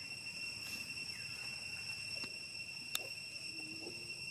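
Steady, high-pitched drone of insects (crickets or cicadas), unbroken throughout, with a single sharp click about three seconds in.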